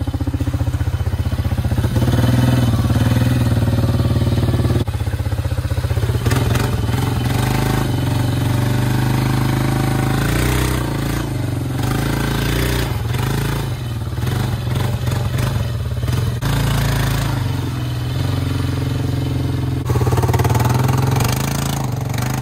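ATV (four-wheeler) engine running close up while riding through a muddy, water-filled trail, its note rising and falling with the throttle, with splashing of mud and water at times.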